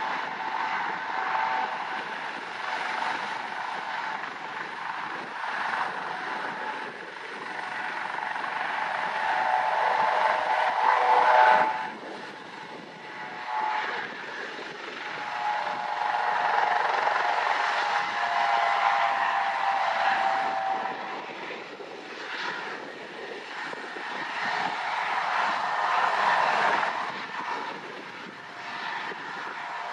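Eurocopter AS365 Dauphin helicopter running on the ground with its main rotor turning, its twin turbines giving a steady whine over a continuous rush. The level swells and dips, falling off sharply about twelve seconds in.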